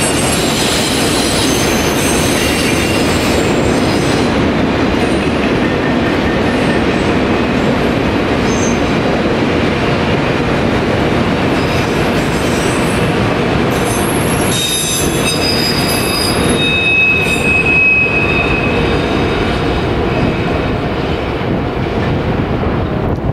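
Freight train of enclosed autorack cars rolling past at close range: a steady rumble of wheels on rail, with high wheel squeals coming and going and one held squeal about two-thirds of the way through. The sound eases slightly near the end as the last cars go by.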